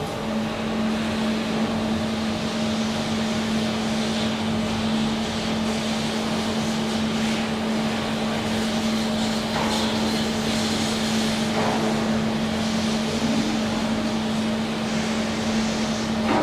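SMW traction elevator car travelling in its shaft, heard from inside the car: a steady motor hum over an even rushing noise, stopping near the end as the car arrives.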